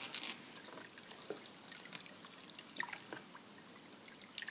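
A wooden stick stirring warm water in a plastic bucket to dissolve textile-dye salt for a dye bath: faint dripping and sloshing, with a few light clicks.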